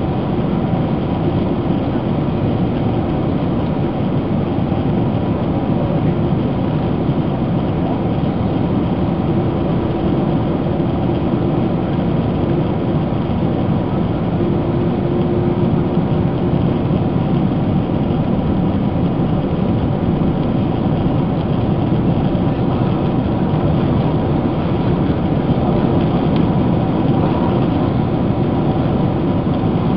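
Steady cabin noise inside a Boeing 767-300ER on approach: a low, even rumble of jet engines and rushing air, with a few faint steady humming tones.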